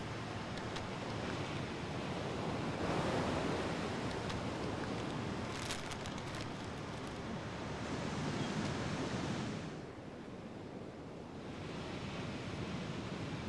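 A steady rushing outdoor noise that swells twice and eases back about ten seconds in, with a few faint clicks near the middle.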